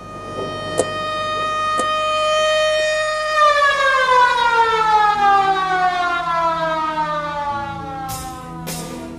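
Siren sounding a steady tone that swells in loudness, then winds down in a long, steadily falling pitch. A couple of sharp ticks come early, and drum beats start near the end.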